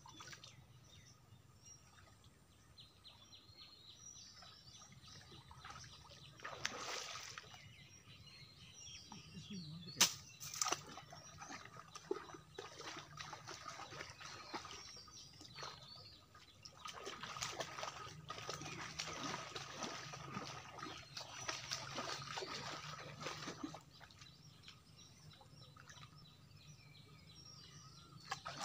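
Pond water sloshing and splashing in irregular bursts as a man wades waist-deep and works his hands through it, with a sharp knock about a third of the way in and a longer stretch of sloshing in the second half.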